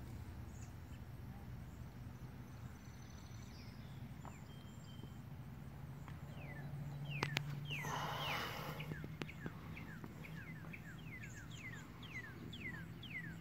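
A bird calling with quick, repeated short chirps that slide downward in pitch, starting about halfway through and continuing steadily at two or three a second. A faint low steady hum runs under the middle, with a few faint clicks and a brief hiss.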